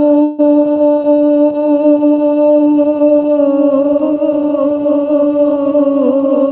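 A man's voice holding one long chanted note, steady with a slight waver, with a short break for breath about a third of a second in.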